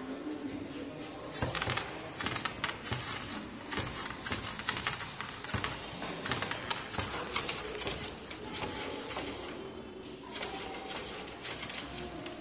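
Rapid, irregular clicking and clattering from a homemade remote-controlled robot, its servo-driven plastic construction-kit arm and parts rattling as it moves, thinning out near the end.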